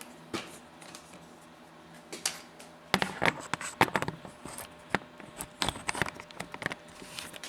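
Irregular clicks and clacks of an LED work light and its detachable mounts being handled and fitted together, a couple of single clicks early on and a busy run of them from about three seconds in.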